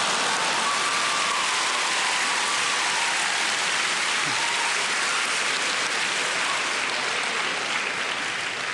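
A large theatre audience laughing and applauding, a dense, sustained wall of clapping and laughter that begins to die down near the end.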